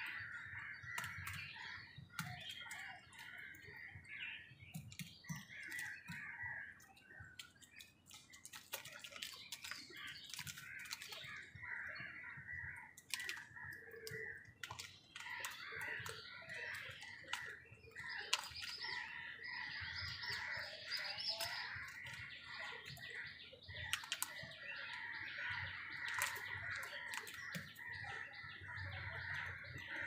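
A steady chorus of birds chirping, with frequent sharp clicks and taps scattered through it from house crows pecking at food in a plastic bowl and on concrete.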